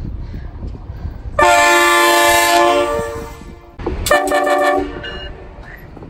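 Diesel locomotive air horn sounding two blasts of several notes at once, the first longer and trailing off, the second shorter, over the low rumble of the approaching train.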